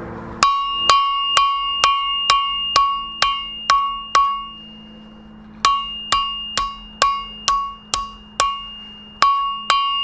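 Hammer forging hot steel on an anvil: sharp blows about two a second, each followed by a clear metallic ring from the anvil. A run of about nine blows, a pause of about a second and a half, then another run of about ten.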